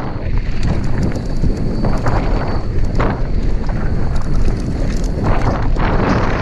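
Heavy wind buffeting the microphone, a dense rumble, with many short sharp clicks and rattles scattered through it.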